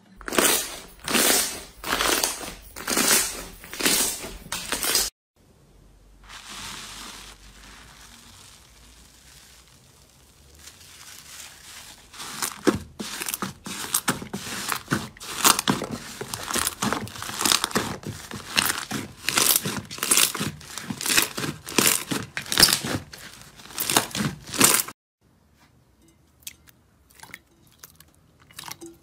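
Slime being pressed and kneaded by hand, crackling and popping in loud bursts, about two a second at first. After a short quiet stretch comes a longer run of denser crackling, and it ends with softer, scattered clicks.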